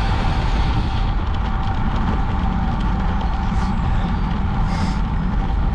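Steady wind rumble on the microphone with road noise while riding a bicycle.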